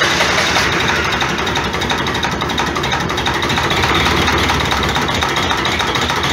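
Ursus (Zetor-type) tractor diesel engine running steadily with a fast, even firing clatter, just after a cold start in hard frost. A burning torch is held at the air intake to help it fire.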